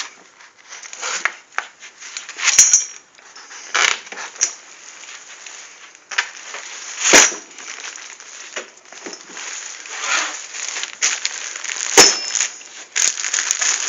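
Handling noise of a phone camera caught behind a fold-out sofa bed: rustling and scraping against fabric and the bed's metal frame, with clinks and several sharp knocks.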